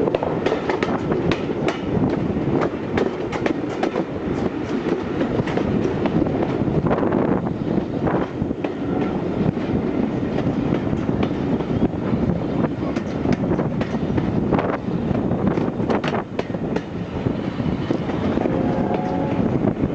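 A4 Pacific steam locomotive 60007 "Sir Nigel Gresley" and its train running into the station, with a steady rumble and many sharp clicks as the wheels pass over the rail joints. There is a brief faint squeal near the end.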